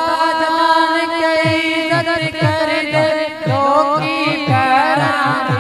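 A man's solo voice singing a Punjabi naat through a microphone, drawing out long, wavering, ornamented notes without clear words. A low thudding beat repeats about twice a second underneath.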